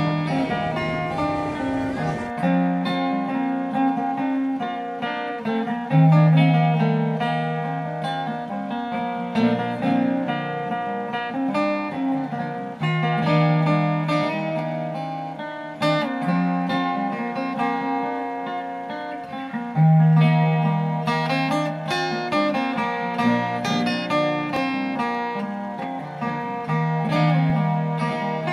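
Acoustic folk guitar music, plucked notes in an unhurried improvisation. A low noisy rumble sits under it at first and stops about two seconds in.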